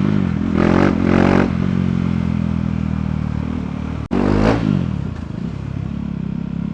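KTM Duke 390's single-cylinder engine and exhaust, revved in short throttle blips near the start, the pitch rising and falling, then running steadily, with another rev and fall about four and a half seconds in.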